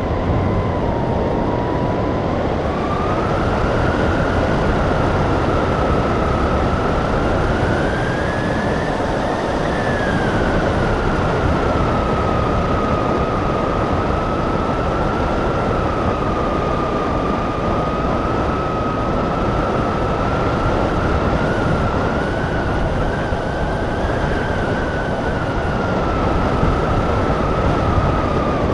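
Airflow rushing over a hang glider and its camera's microphone in flight: a loud, steady rush with a high whistle through it that rises in pitch about a third of the way in, then falls back and holds.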